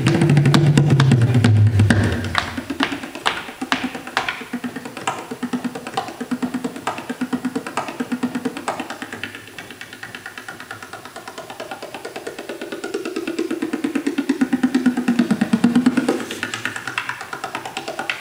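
Bodhrán played solo with a tipper in fast, even rolls. It opens with deep, loud strokes, drops to a quieter rapid pattern that is softest about halfway through, then builds again, with the drum's pitch bending upward before sharper strikes near the end.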